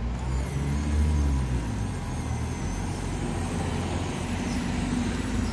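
Low rumble of a motor vehicle's engine running near by, swelling about a second in and then holding steady.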